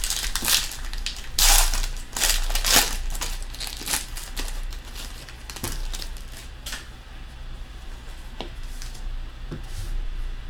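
Crinkling, rustling and light clicks of trading cards and plastic packaging being handled, in irregular short bursts that are busier in the first few seconds.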